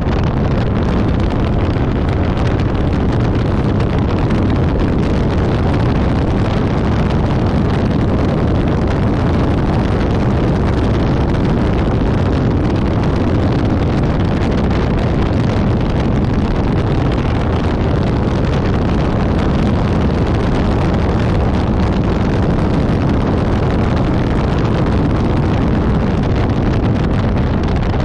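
Infiniti G37S's 3.7-litre V6 running at track speed, heard under heavy wind noise on the action-camera microphone. The sound is loud, steady and dense, with no breaks.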